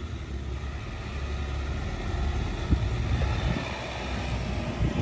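Ford Ranger Raptor pickup engine running under load as the trucks crawl up a sandy off-road track: a steady low rumble, with a couple of short thumps.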